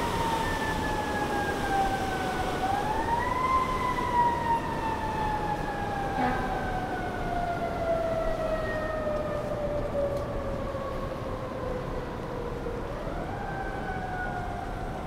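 A siren wailing: one tone that slides slowly down, swoops back up about three seconds in, slides down again for about nine seconds, and starts to rise again near the end, over steady background noise.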